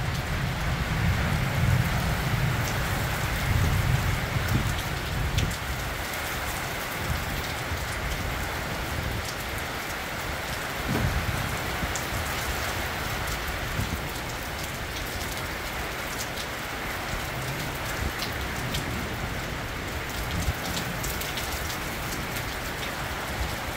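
Heavy summer rain falling steadily, a dense hiss with scattered sharp drop ticks. A low rumble underneath fades out over the first five seconds.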